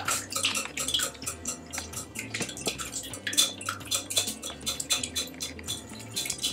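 Metal wire whisk beating eggs and melted butter in a glass bowl, its wires clicking against the glass in a rapid, uneven run.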